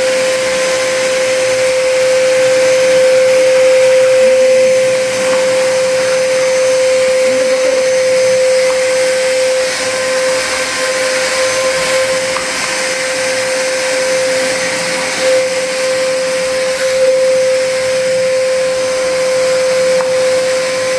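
Trumax MX0120 20-litre wet/dry vacuum cleaner running steadily with a constant whine over a rushing hiss, sucking up cobwebs and dust.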